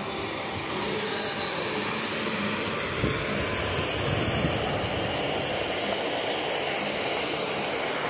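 Water rushing over an artificial rock cascade: a steady rushing hiss, with a low rumble for a second or so about three seconds in.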